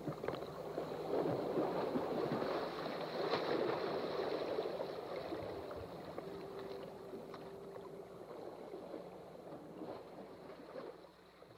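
Water lapping and sloshing, with small splashes, slowly fading out.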